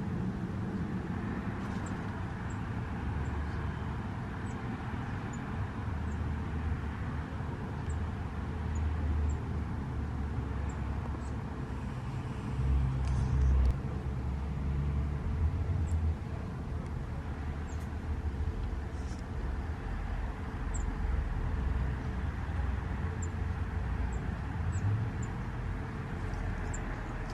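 Steady low rumble of road traffic, louder for a moment about 13 seconds in as a vehicle passes, with faint, scattered high chirps of small birds over it.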